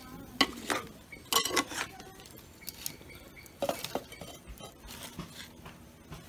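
Wooden spoon knocking and scraping against an earthenware clay pot while chunks of pumpkin are stirred, followed by the clay lid clinking down onto the pot. The sharp knocks come irregularly over the first few seconds, then only light ticks.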